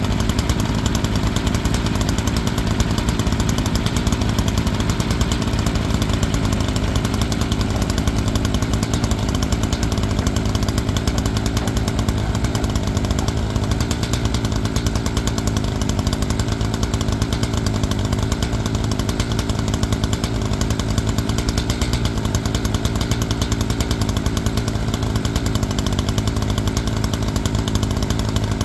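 Wood-Mizer band sawmill running steadily under load as its band blade makes a cut along a log, slabbing it down toward a square cant.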